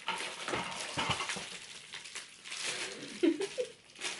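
Rustling and crinkling of a cardboard gift box and the paper wrapping inside it as a baby handles them, with a short voice sound about three seconds in.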